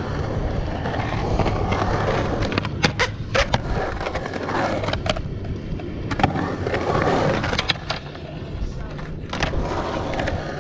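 Skateboard wheels rolling on the concrete of a skate bowl, a continuous rumble, broken by sharp clacks of the board: a quick cluster about three seconds in and single ones around six, seven and a half and nine seconds in.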